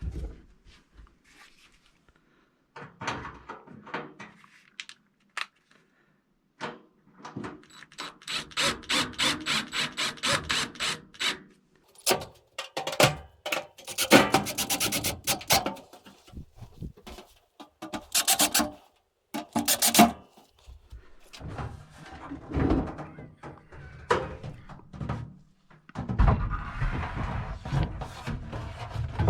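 Rubbing, scraping and knocking as a microwave is worked into a wooden cabinet opening. There are irregular knocks, a run of quick repeated scraping strokes in the middle, and a longer rubbing, rumbling stretch near the end.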